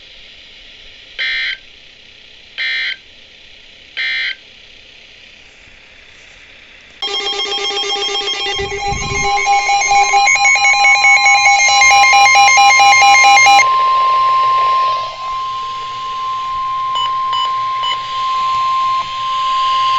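Emergency Alert System end-of-message data bursts: three short bursts of digital code, about a second and a half apart. Around seven seconds in, a fast-pulsing electronic alarm starts. Soon after, the steady 1050 Hz NOAA Weather Radio warning tone begins; it holds for about twelve seconds, outlasts the pulsing, and cuts off sharply at the end, heralding the next warning.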